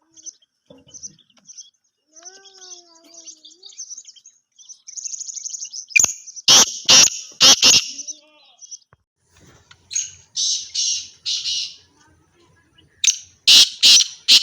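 Francolins (teetar) calling: harsh, grating notes in loud groups of three or four strokes, about six, ten and thirteen seconds in, with thinner high chirping between them.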